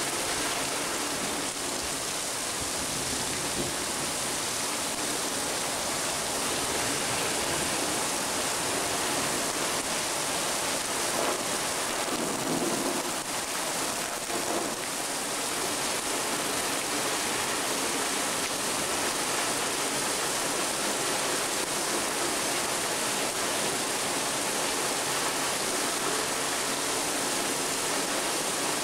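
Heavy thunderstorm rain pouring steadily, a dense even hiss.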